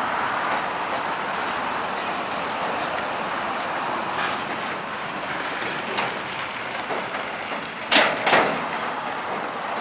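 Steady vehicle or road noise, with two sharp knocks in quick succession about eight seconds in.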